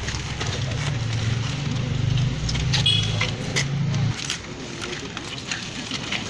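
Low, steady engine hum that cuts off about four seconds in, with scattered light clicks and rustles.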